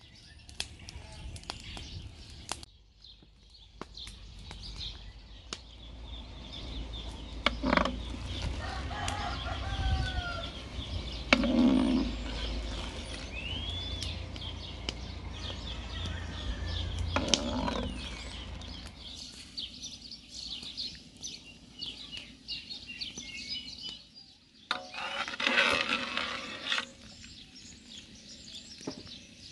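Chickens clucking and calling, with scattered sharp clicks and knocks and a low rumble through much of the middle.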